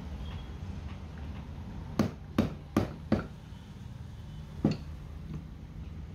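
Sharp knocks from workshop handwork on a starter motor: four in quick succession about two seconds in, then a fifth a second and a half later, over a steady low hum.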